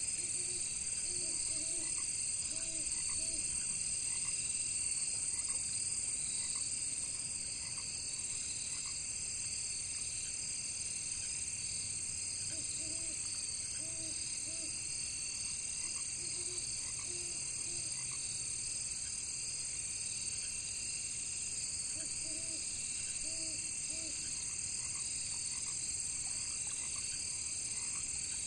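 Frogs croaking in about four short runs of several calls each, over a steady high chorus of crickets and other insects.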